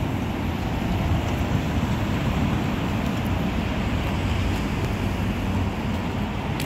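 Road traffic passing on a city street, with wind rumbling on the microphone.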